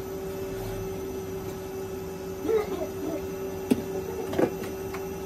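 Plastic grinding mill running with a steady hum while ground PVC powder pours from its chute, and a metal hoe knocks twice against the steel collecting tray in the second half.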